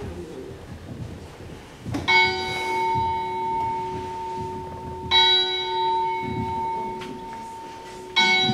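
Church bell struck three times, about three seconds apart, each stroke ringing on and slowly fading. It sounds like a recorded bell played over a loudspeaker.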